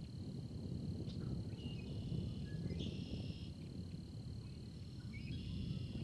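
Storm ambience: a steady low rumbling noise, with a constant high insect trill over it and a bird calling three times in short chirping phrases.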